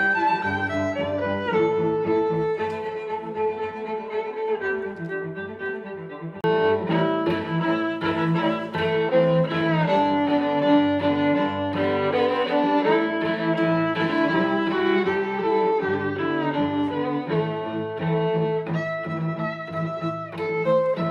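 Music with prominent bowed strings, played back through a portable Bluetooth speaker with no EQ applied. It gets fuller and louder about six and a half seconds in.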